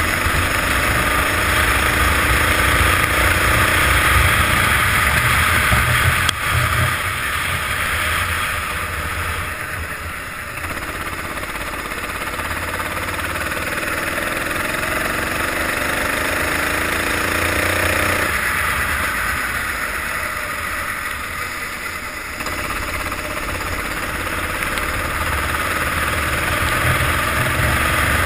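Racing kart engine heard onboard, climbing in pitch as it accelerates down the straights and dropping abruptly when the throttle is lifted, several times over. Under it runs a steady hiss of tyre spray off the wet track.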